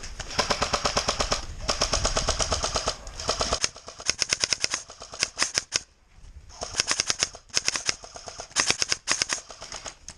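Airsoft electric rifle with a dual-sector-gear (DSG) gearbox firing very rapid full-auto bursts: two long bursts, then a string of short, broken-off bursts with gaps between them. The gun is cutting out because its motor connections have come loose.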